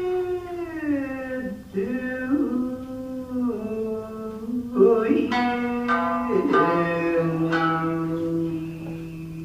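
Traditional Japanese dance music: a voice holds long notes that slide slowly in pitch, over a few sharp shamisen plucks.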